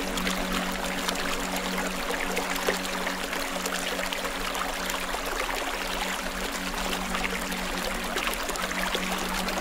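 Steady hiss of running, trickling water with faint crackles through it, over a soft, low held music tone.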